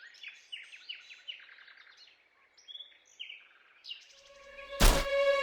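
Birds chirping in quick short calls for about four seconds. Near the end comes a sudden loud hit, followed by a held ringing musical tone.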